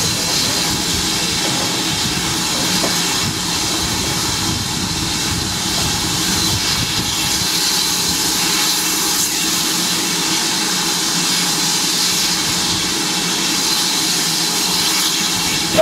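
Steam hissing steadily from a standing GWR 5600 class 0-6-2T tank locomotive, 5643.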